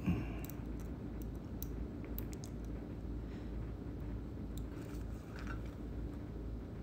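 Steady low room hum with a few faint, short ticks scattered through it.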